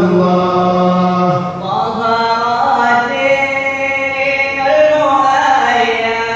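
A man singing a qasidah (Islamic devotional song) unaccompanied into a handheld microphone, in long held notes that glide and ornament between pitches.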